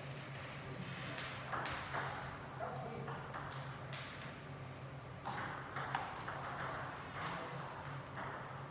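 Table tennis ball clicking off bats and the table during a rally, irregular sharp ticks, with more pings from another table in play nearby.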